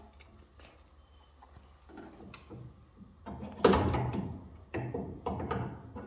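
Metal clinking, rattling and scraping as the shaper spindle of a Felder CF 741s is worked loose and lifted out of its housing, loudest a little past halfway.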